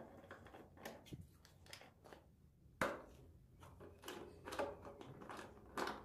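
Socket wrench on an extension turning out motorcycle seat bolts: faint, irregular metallic clicks and clinks, with one sharper click about three seconds in.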